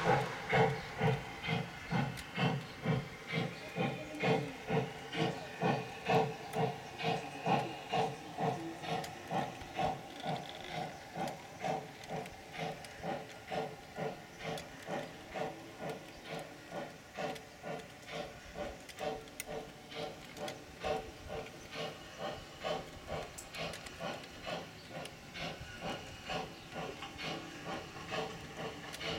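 Gauge 1 model steam locomotive chuffing in an even rhythm, a little over two chuffs a second, getting quieter as it draws away.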